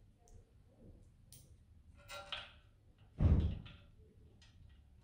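Steel parts of a manually operated curtain eyelet press being handled during assembly. There is a short scrape about two seconds in, then a dull thump a second later, which is the loudest sound.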